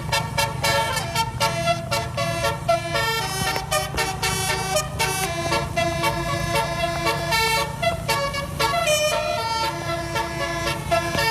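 Basuri telolet horn, a multi-tone vehicle horn, playing a tune in quickly changing notes over a steady low hum.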